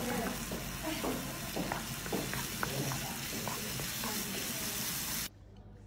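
Eggplant and tomato mixture sizzling in a frying pan while a wooden spoon stirs it, with repeated short scraping strokes. The sizzle cuts off abruptly near the end.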